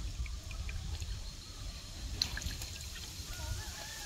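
Water trickling and dripping as a wet nylon cast net is gathered up and handled in river water, with scattered small clicks and splashes.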